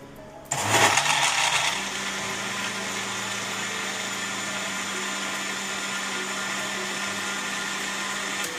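Electric countertop blender with a glass jar switching on about half a second in and blending a watery raw-mango and mint mixture: a louder churn for the first second or so, then a steady whir.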